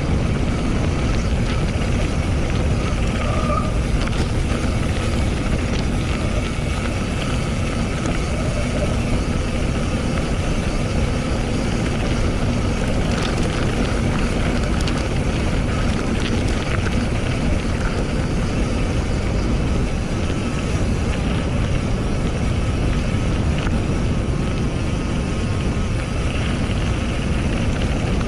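Wind buffeting an action camera's microphone while riding a mountain bike at speed: a steady, loud rumble, with a few faint ticks in the middle.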